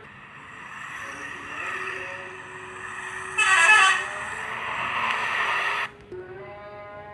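A bus 'telolet' musical air horn sounding in tones, with its loudest blast about three and a half seconds in and a steadier held tone near the end.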